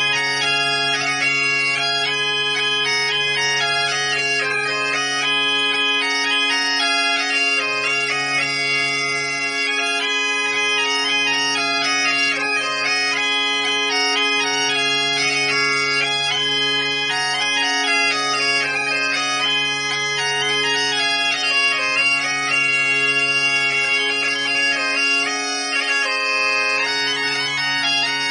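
Two Galician bagpipes (gaitas) playing a xota in waltz time together, the chanters carrying the melody over their unbroken drones.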